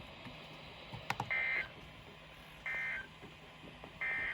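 Emergency Alert System end-of-message code: three short, identical bursts of buzzy two-tone digital data, about 1.4 s apart, signalling that the alert has ended. A click comes about a second in, before the first burst.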